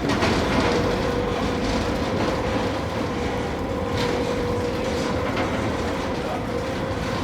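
Resort tram running: a steady rumble with a held tone, broken by a few faint clicks.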